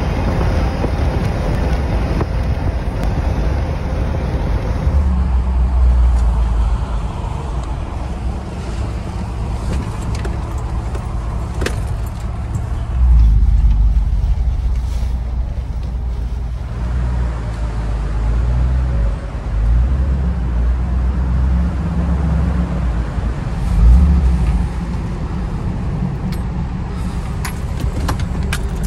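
Pickup truck driving, its engine and road noise a steady low rumble inside the cab that swells and eases a few times. Near the end come a few sharp clicks and a jingle of keys at the ignition as the truck is shut down.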